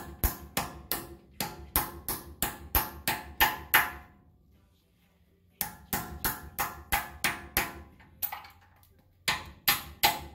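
Hammer blows driving a carriage bolt, held in needle-nose vise grips, through a rubber strip into the hole in a steel tractor wheel rim. The strikes are sharp and steady at about three a second, with a break of a second or so near the middle.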